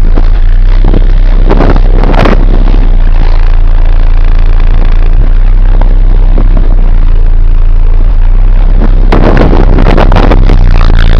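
Extremely loud, deep sub-bass from a Sundown Audio SA-12 12-inch subwoofer playing a bass track centred near 28 Hz, overloading the microphone into a steady distorted drone. Bursts of crackling come about two seconds in and again from about nine seconds.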